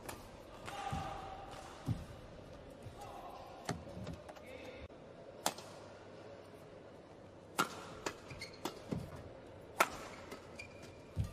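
Badminton rally sounds in an indoor hall: sharp cracks of rackets striking the shuttlecock and thuds of players' footwork, about a dozen separate hits and thumps.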